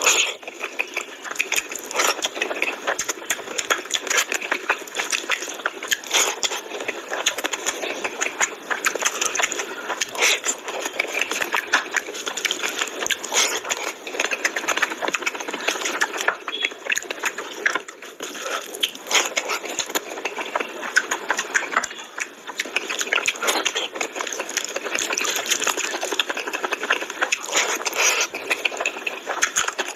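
Close-miked eating of mutton curry and rice by hand: continuous wet chewing and lip-smacking, with fingers squelching through gravy and rice between mouthfuls.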